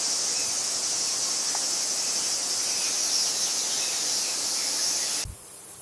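Steady, high-pitched chorus of insects that cuts off suddenly near the end with a brief low thump, leaving a steady hiss.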